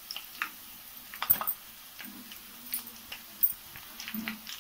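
A handful of light, sharp clinks of a steel slotted spoon against the kadai as ground chilli powder and other spice powders go into the frying onions.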